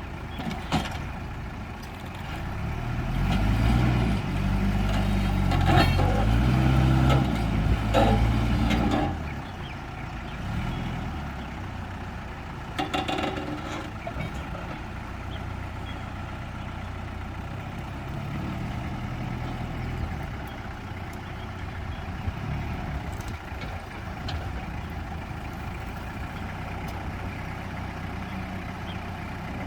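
Truck engine revving up and down for several seconds, then running steadily at lower speed, with a few sharp knocks.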